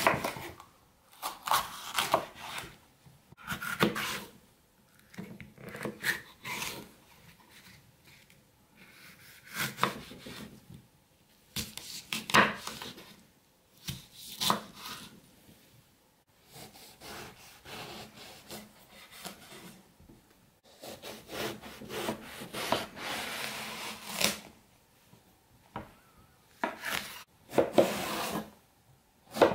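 Chef's knife chopping red bell pepper and then eggplant on a wooden cutting board: irregular sharp knocks of the blade striking the board, with a longer, softer stretch of noise about two-thirds of the way through.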